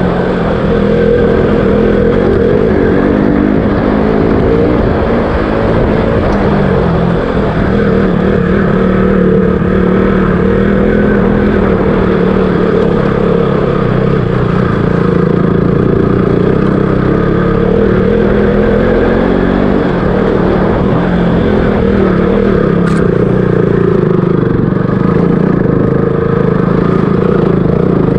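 KTM RC 200's single-cylinder four-stroke engine running while the bike is ridden, holding a fairly steady pitch. There is one sharp click late on.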